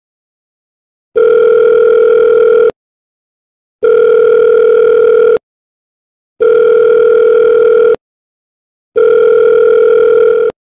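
Telephone ringback tone while an outgoing call waits to be answered: a loud steady tone about a second and a half long, repeating four times with gaps of about a second between.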